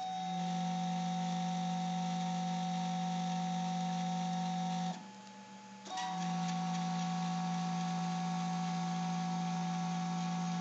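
3D printer stepper motors whining at one steady pitch as an axis travels at constant speed. The whine stops for about a second around the middle, then resumes at the same pitch until near the end.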